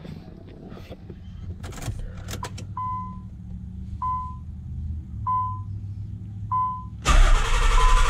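Nissan 300ZX's dashboard warning chime with the ignition on: four short ringing tones about a second and a quarter apart, over a low steady hum, after a few clicks. A loud burst of noise comes near the end.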